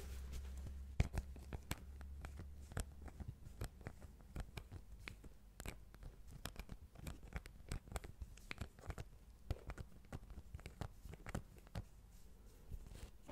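Irregular close-up taps, clicks and scratches from hands handling a spiral sketchpad beside the microphone. A low rumble of handling runs under the first couple of seconds.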